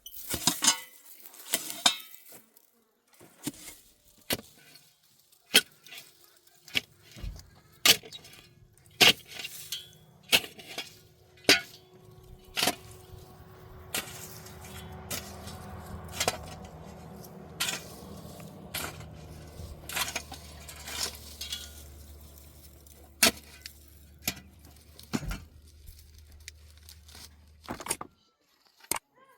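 A series of sharp knocks and clinks at irregular intervals, with a low steady hum underneath from about six seconds in until shortly before the end.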